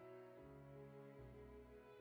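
Faint, slow orchestral background music: held string chords that shift every second or so.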